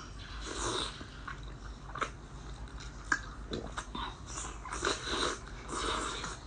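Close-miked eating of sauce-covered seafood: biting and chewing with several wet mouth sounds and a couple of sharp clicks.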